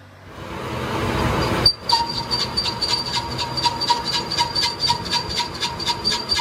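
Metalworking machinery: a rush of noise builds for about a second and a half, then breaks off suddenly. A steady high metal-on-metal squeal follows, pulsing evenly about four times a second.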